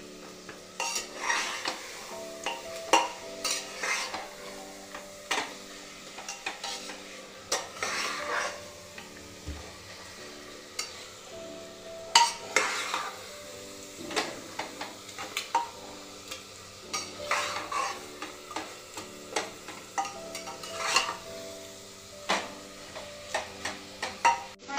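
Spatula stirring and scraping marinated mutton in a pressure cooker, with oil sizzling under it, in irregular strokes a second or two apart. This is the meat being fried down (kosha) until the oil separates.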